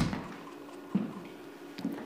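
Three soft thuds about a second apart, the first the loudest, over a faint steady hum.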